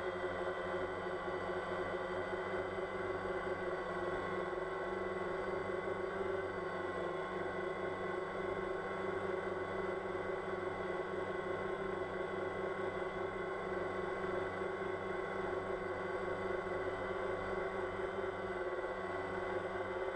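Multirotor drone's motors and propellers running, picked up by the camera on the drone itself: a steady buzzing hum made of several held tones whose pitch shifts slightly as the drone flies.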